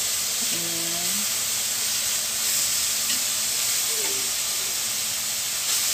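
Marinated beef slices frying in a hot aluminium wok: a steady sizzle. A short low hum of a voice comes about a second in.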